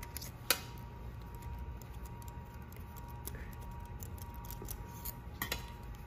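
A sharp click about half a second in and two more near the end as the TIG torch head is taken apart by hand, its ceramic cup and metal parts twisted and tapped, over a low steady hum.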